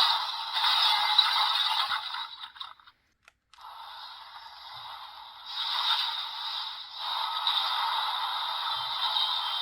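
Sound effects played from the small speaker of a Premium DX Boost Mark IX Raise Buckle toy in its Mark III mode, noisy and with no low end. One effect stops about three seconds in, a button clicks, and the next effect starts and builds up louder.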